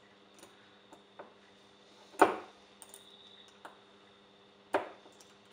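Small metal parts and tools handled on a desk: two sharp knocks about two seconds apart, with a few light clicks between.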